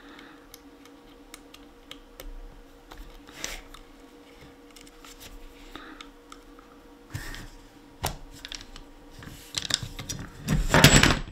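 Small clicks and taps of hands working the rail loose from the body of an Umarex HDX 68 air shotgun, with a few louder knocks. Near the end comes a louder burst of clattering as the rail is lifted off.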